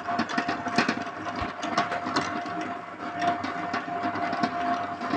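Electric dough mixer running, its motor giving a steady whine while the hook churns flour and water into donut dough, with irregular knocks and clatter from the hook and bowl.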